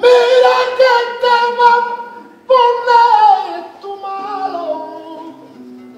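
Unaccompanied flamenco singing by a man: a long, high held note with small ornamental breaks, then a new phrase about halfway through that winds downward in melismatic turns and fades away.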